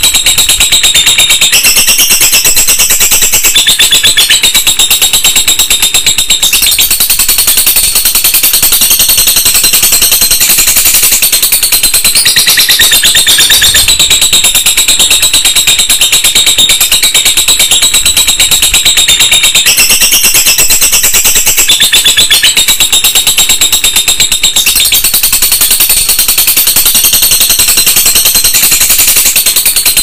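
Lovebird ngekek: a long, unbroken, very rapid high-pitched chattering trill, loud throughout, its tone shifting every few seconds.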